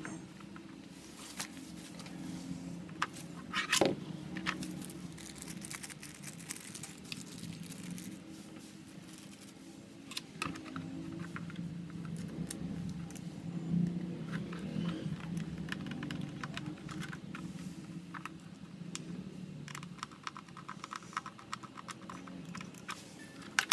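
Plastic clicks and knocks from a mechanical keyboard and its wrist rest being handled and fitted together, with a sharp knock about four seconds in and a quick run of clicks near the end, over a low steady hum.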